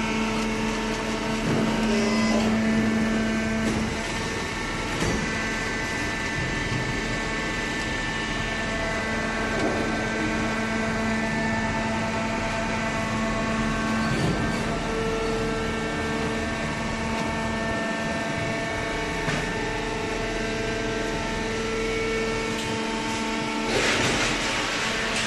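Hydraulic cardboard baler running: a steady mechanical hum with several whining tones that come and go. A brief rush of noise comes near the end.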